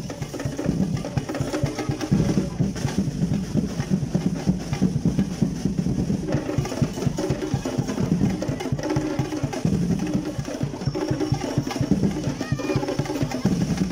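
Music driven by fast, busy drumming with snare drum and rolls, at a steady level throughout.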